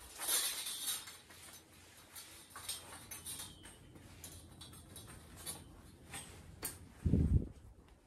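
A thin steel sawmill bandsaw blade being handled and uncoiled with gloved hands: light metallic clinks and scraping as the loops slide against each other, with a brighter rattle about half a second in. A dull thump comes near the end as the blade springs open.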